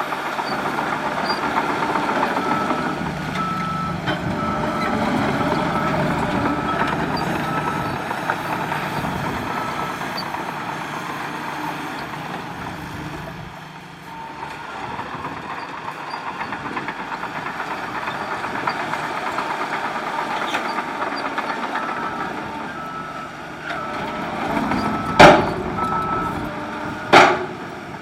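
Heavy diesel earthmoving machinery running, with a reversing alarm beeping steadily for about the first ten seconds and again near the end. Two loud sharp bangs about two seconds apart near the end.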